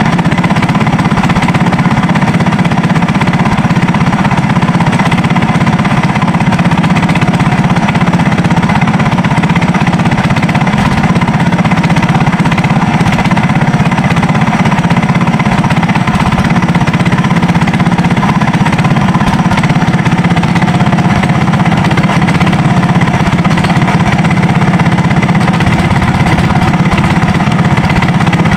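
A Sumo Rato 15 hp SE single-cylinder four-stroke gasoline engine, a racing boat engine, runs steadily and loudly at a constant speed throughout, close to the microphone.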